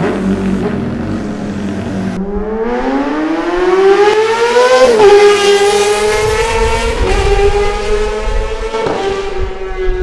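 Kawasaki ZX-6R 636 inline-four with a titanium Arrow race exhaust, revving hard under acceleration. After a steadier, lower stretch, the pitch climbs for a few seconds and drops sharply at an upshift about five seconds in. It then holds high, with two brief dips at further gear changes.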